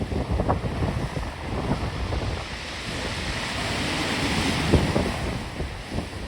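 Storm waves breaking and surging, with strong wind buffeting the microphone in low rumbling gusts. A louder rush of water swells up in the middle and peaks near the end.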